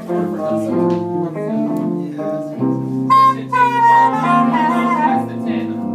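Live blues band playing: blues harmonica wailing a lead line with bent notes over hollow-body electric guitar and electric bass. The harmonica comes in strongly about halfway through.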